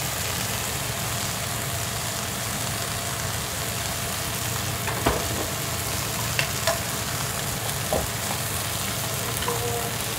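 Mixed vegetables sizzling as they stir-fry in a non-stick pan, a steady hiss. A few sharp clicks of a utensil against the pan come about five, six and a half and eight seconds in.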